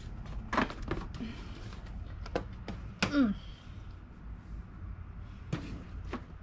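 A handful of scattered knocks and thumps from things being handled and moved on cluttered storage shelves, over a low steady hum.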